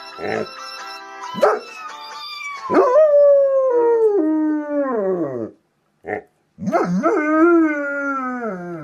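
German Shepherd howling: after a few short cries, two long howls, each sliding down in pitch as it ends, with a brief yelp between them.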